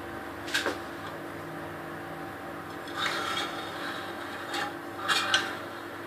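A utensil scraping and clinking against a dish in a few short bursts, as chocolate topping is spread over a cake: once about half a second in, again around three seconds, and twice near the end.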